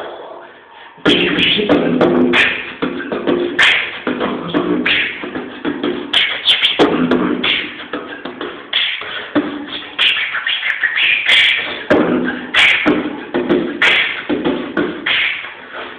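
A man beatboxing: a steady run of mouth-made drum clicks and hits over hummed tones, starting about a second in.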